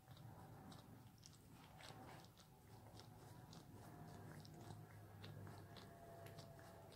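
A Pekingese licking its front paw: a steady run of soft, wet licking clicks, about three a second. The licking is a sign that feeling is coming back to the paws, which the owner hopes after acupuncture for a cervical disc herniation.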